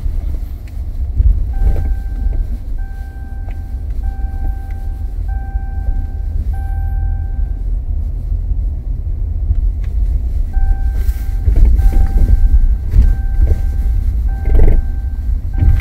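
Pickup truck cab while driving slowly: a steady low engine and road rumble, with a dashboard warning chime beeping about once every 1.3 seconds. The chime comes in two runs, one through the first half and another starting about two-thirds in, and a few knocks sound near the end.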